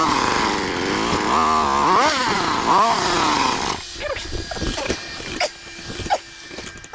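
Motorcycle engine, just carburetor-tuned, revving up and down during a test ride; after about four seconds the revs drop away and the engine sound falls off, leaving a few short, sharp sounds.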